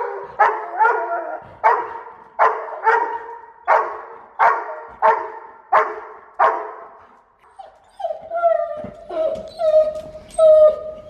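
A large dog barking in a steady run of about a dozen barks, a little under a second apart, then from about seven seconds in breaking into high, drawn-out whining cries.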